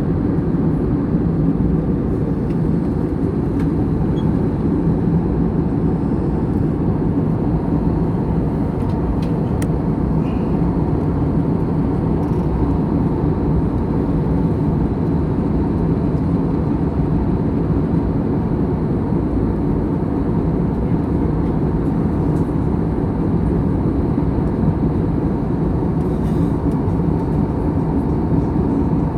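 Steady low rumble with a constant droning hum, as of a running vehicle.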